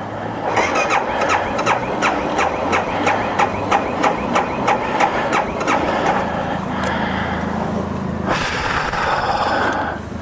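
Electric starter cranking the BMW G 650 GS Sertão's single-cylinder engine, a rhythmic chug of about three pulses a second for some six seconds, without the engine catching: the bike's recurring no-start fault in the cold. A loud burst of noise follows near the end.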